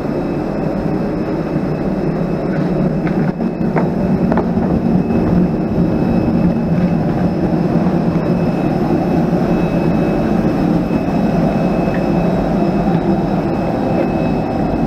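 Steady loud drone of a parked jet airliner on the stand, with a thin high whine over it, heard at the aircraft's boarding door. A few light clicks come about three to four seconds in.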